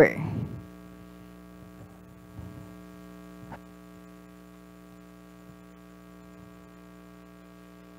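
Steady electrical mains hum in the recording, a stack of even tones, with a couple of faint clicks.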